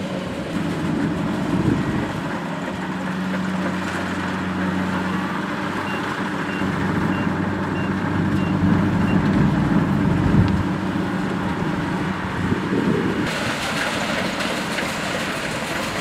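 Rice combine harvester's diesel engine and threshing machinery running steadily under load. A faint run of about seven short high beeps, two a second, sounds near the middle, and the sound turns noisier and more rushing in the last few seconds.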